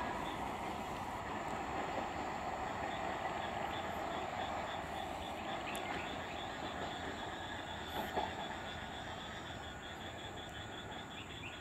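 Electric multiple unit (EMU) local train running past on a curve, its wheels and running gear making a steady rumble that slowly fades as it moves away, with a couple of brief louder knocks about eight seconds in.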